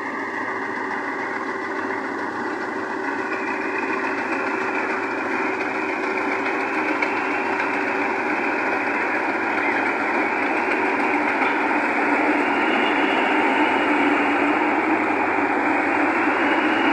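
Rice combine harvester running steadily, growing gradually louder.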